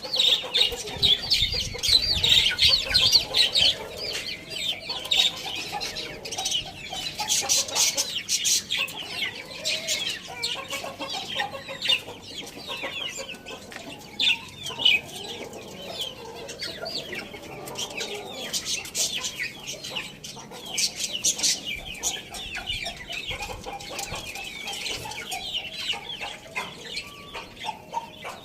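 Chickens clucking, with dense high chirping and cheeping over them throughout.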